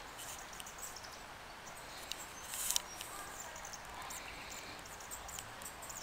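Quiet outdoor park ambience: small birds chirping in short, scattered high calls over a steady background hiss, with one brief noisy burst about two and a half seconds in.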